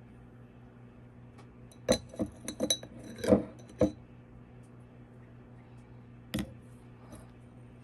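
Glass or dishware clinking as it is handled: a quick cluster of clinks about two seconds in and a single one near six seconds, over a steady low hum.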